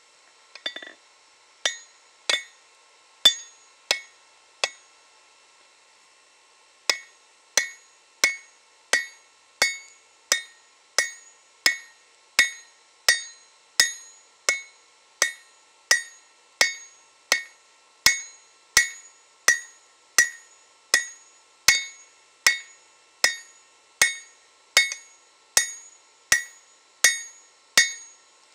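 Hand hammer striking red-hot leaf-spring steel on an anvil, each blow ringing. A few spaced blows come first, then a short pause, then steady hammering at about three blows every two seconds.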